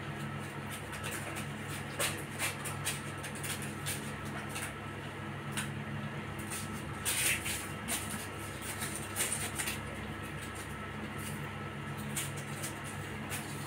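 Scattered light clicks and taps of kittens' paws and claws on a tiled floor as they play with a small object, with a couple of brief rustles, over a steady low hum.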